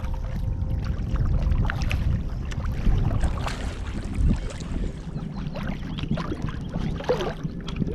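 Water splashing and slapping around a sea kayak in choppy water, over a heavy rumble of headwind on the microphone.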